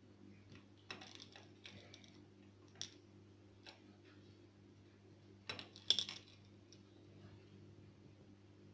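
Light clicks and taps of small hard pieces and utensils against glassware or a dish while a drink is being garnished. There is a cluster about a second in, single ticks near three and four seconds, and the loudest few clicks around six seconds.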